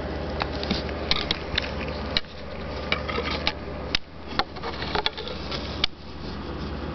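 Handling noise: a scatter of sharp clicks and light knocks, as the camera is moved close against the plastic tarantula enclosure, over a steady low hum.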